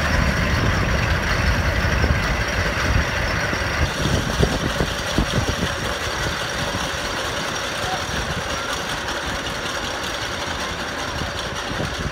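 Steel roller coaster train running on its track: a heavy rumble of wheels on steel rail with some clattering, slowly fading as the train moves away.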